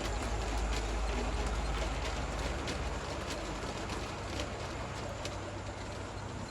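G scale model diesel locomotives running with a long train of wagons: a steady rumble of motors and wheels on track, with scattered light clicks. The low hum drops away about two and a half seconds in.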